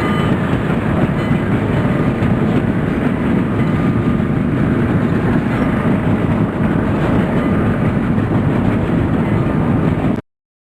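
Indian Railways train running, a loud, steady low noise of the moving train that cuts off suddenly near the end.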